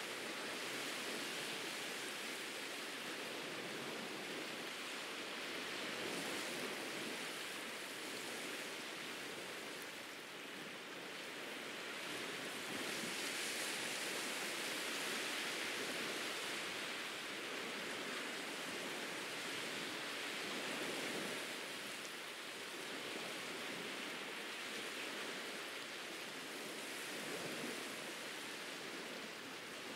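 Ocean surf washing onto a beach: a steady rush of water that swells and eases slowly every several seconds.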